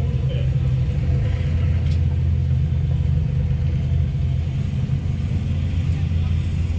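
Steady low engine drone, a constant rumble with no rise or fall.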